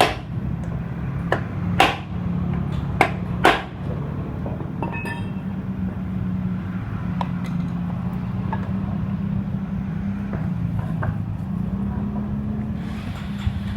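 Sharp metal clinks and knocks of tool work, four of them in the first few seconds and a short ring a little later, over a steady low engine hum.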